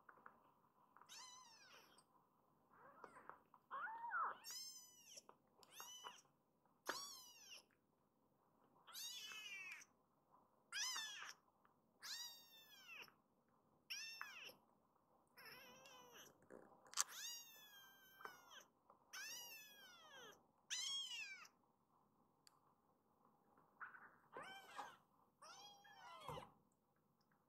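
A young kitten mewing over and over: about fifteen short, high-pitched calls, each rising and then falling in pitch, one every second or two.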